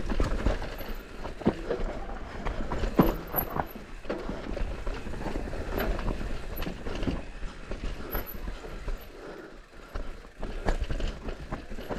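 Intense Tazer MX Pro electric mountain bike rolling down a dirt forest trail: tyres on dirt and roots with irregular knocks and clatter from the frame, chain and suspension, over a low rumble of wind on the helmet camera.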